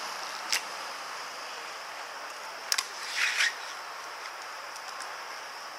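Evzone guards' hobnailed tsarouchia clogs striking the marble paving during their slow ceremonial march: a few sharp stamps, about half a second in, a double one near three seconds, and one more at the end, with a brief scrape of a sole on the stone just after the double stamp.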